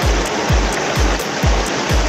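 Steady rush of river water pouring over a concrete weir, with background music's regular kick-drum beat laid over it.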